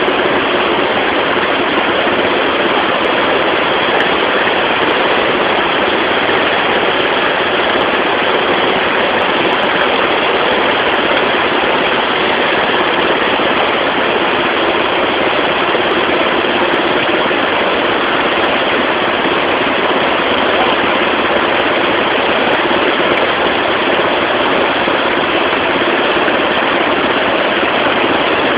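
Boat motor running steadily through the whole stretch, under a dense, even rush of noise.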